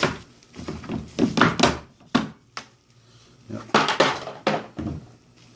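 Plastic rear bumper exhaust trim bezel of a Mazda RX-8 being pulled out of the bumper, its retaining clips letting go in a series of sharp plastic snaps and knocks.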